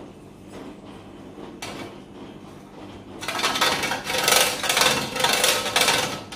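The bottom rim of a ceramic cup scraped back and forth over the cutting holes of a stainless-steel box grater, a rasping stroke about twice a second, starting about three seconds in. The scraping sharpens the grater's dulled blades.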